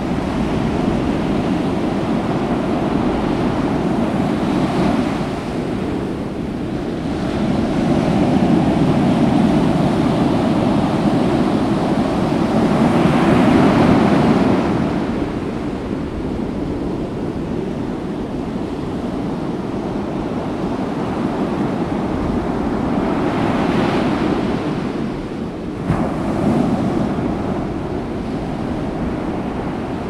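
Winter storm wind blowing in gusts, a steady rush that swells loudest for several seconds about a third of the way through and again near the end. A brief knock comes just after the second gust.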